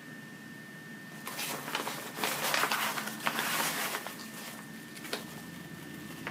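Inflated aircraft life vest's nylon fabric rustling and crinkling as it is handled, for about three seconds starting a second in, then a single click. A faint steady high-pitched tone sits underneath.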